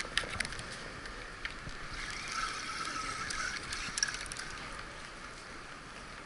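Sea water washing and lapping below a fishing pier, a steady hiss that swells slightly a couple of seconds in, with a few faint clicks.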